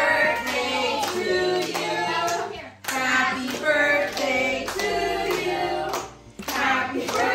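A group of people singing a birthday song together in sung phrases, with a short break between phrases twice, while clapping along.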